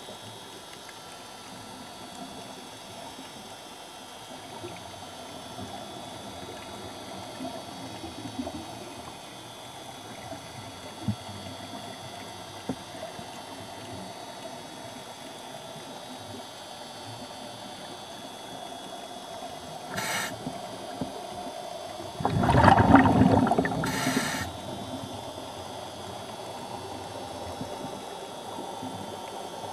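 Underwater ambience: a steady hiss with a faint hum and a few faint clicks. About three-quarters through comes a louder rush of noise lasting about two seconds.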